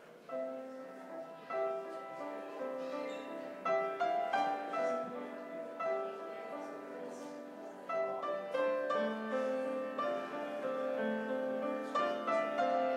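A keyboard instrument plays the postlude, starting about a third of a second in: a steady flow of melody notes over chords.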